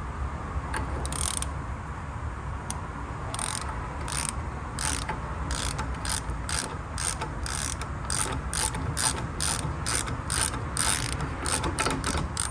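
Hand ratchet turning a socket on an axle nut, its pawl clicking in short bursts: a few at first, then about two to three a second from a few seconds in, as the nut is run up snug.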